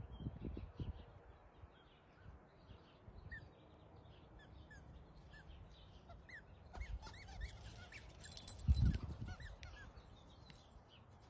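Birds chirping in short repeated calls, faint, with low rumbling bumps near the start and a louder one about nine seconds in.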